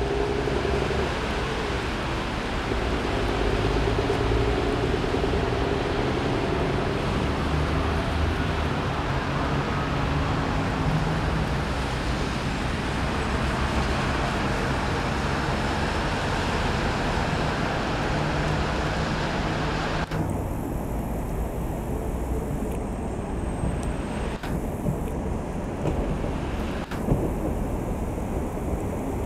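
Class 810 diesel railbus running slowly over the tracks as it approaches, a low steady engine rumble under a broad background hiss. The hiss thins out sharply about twenty seconds in.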